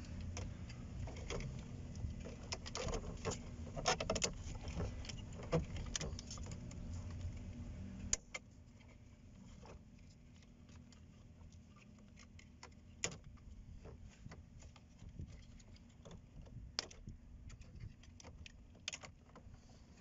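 Scattered plastic clicks and rattles as a Chevy C2's dashboard fan and demister control unit and its connectors are handled. A low steady rumble underlies the first eight seconds and cuts off suddenly, leaving only the clicks.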